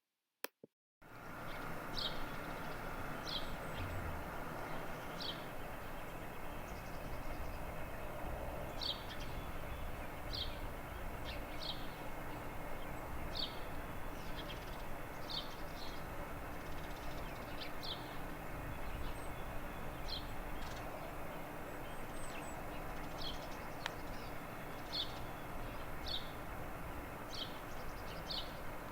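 A bird repeating short, high call notes at irregular intervals of one to two seconds, over a steady background hum of outdoor noise.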